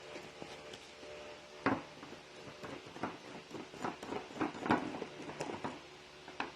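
Handling noise from a small container being picked up and turned in the hands: one sharp knock, then a run of quick, irregular clicks and taps.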